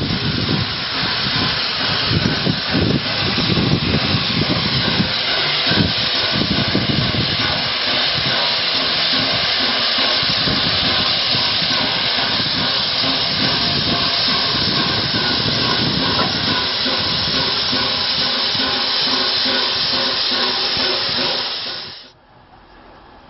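Peppercorn A1 Pacific steam locomotive 60163 Tornado drawing into a platform. A low rumble is heard over the first few seconds, then a loud, steady hiss of steam as it comes alongside. The sound cuts off abruptly near the end.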